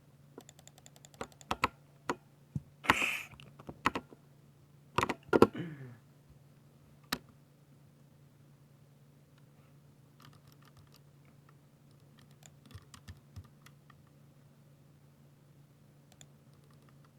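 Typing on a 60% mechanical keyboard with linear silver switches: a quick run of key clacks, with two louder, heavier hits about three and five seconds in. After that only a few scattered light keystrokes come, over a low steady hum.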